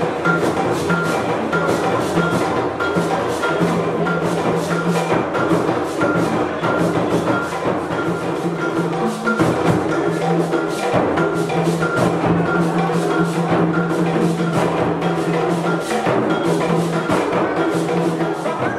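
Traditional Ghanaian drum ensemble playing dance music: drums and hard, wood-block-like percussion keep a fast, steady beat, with a repeating high ringing tone over it.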